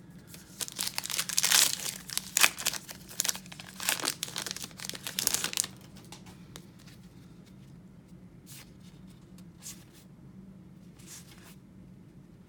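Trading-card pack wrapper being torn open and crinkled for about five seconds, then only faint handling sounds.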